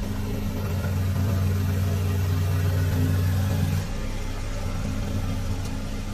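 Kubota U-20 mini excavator's diesel engine running steadily while the boom and arm are worked. Its note steps down a little about four seconds in.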